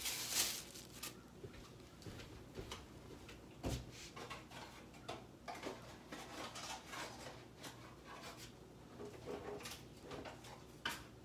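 Faint, scattered rustling and small clicks of hands handling things, with a dull thump a little under four seconds in and a few louder rustles near the end.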